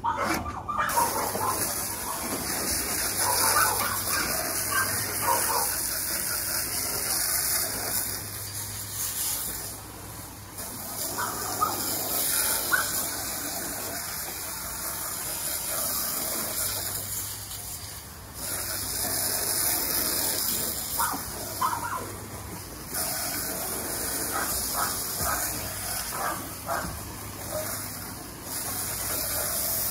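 Garden hose with a spray nozzle spraying water onto a kennel's wooden floor, washing away dog waste. The steady hiss stops briefly several times as the spray is let off and started again.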